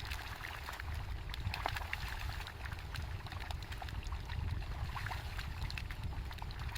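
Faint sloshing and trickling of shallow paddy water over a low, steady rumble, with scattered small ticks.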